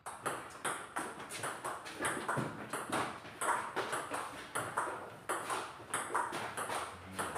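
Table tennis rally: the celluloid ping-pong ball knocks back and forth off the rubber-faced rackets and the table top in a quick steady run of clicks, about three a second.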